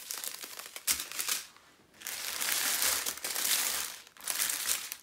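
Small plastic bags of diamond-painting drills crinkling and rustling as they are handled and laid down in a heap. The crinkling comes in spells, with a brief pause about a second and a half in.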